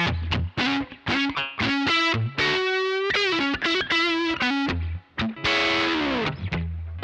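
Suhr Classic S electric guitar played through a Benson germanium fuzz, Cali76 compressor and UA Golden Reverberator reverb into a Joyo American Sound amp-simulator pedal: a fuzzy single-note lead phrase. It holds a note with wavering vibrato in the middle, and one note slides down in pitch near the end.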